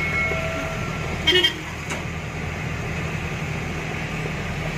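Light truck's engine running steadily on the road, with a short, loud horn toot about a second and a half in.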